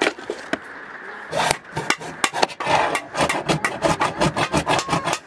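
A few clicks of tools being picked through in a drawer, then a flat scraper blade scraping quickly back and forth over a rubber strip along the edge of a countertop, in many short strokes that come faster in the second half.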